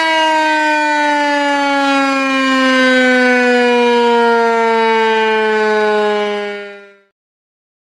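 Tornado warning siren winding down: one loud, steady tone whose pitch falls slowly and evenly, then dies away near the end.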